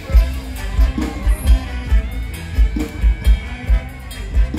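Live Thai Isan band music over a concert sound system, driven by a steady kick drum beat under sustained instrument lines.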